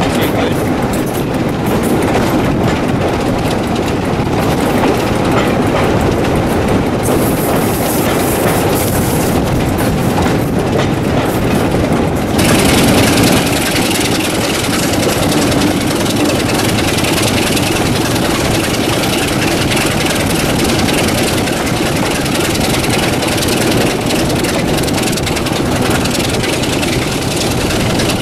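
Class 26 locomotive's Sulzer 6LDA28 six-cylinder diesel engine working hard under power, heard from the carriage behind, with the train's wheels running on the rails. About twelve seconds in the sound turns brighter and more hissy.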